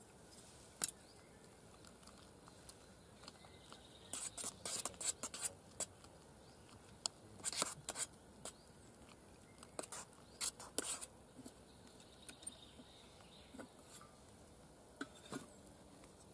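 Spoon scraping and clinking against the inside of a metal mug as noodles are stirred: scattered short scrapes and taps, several in quick clusters, with quiet gaps between.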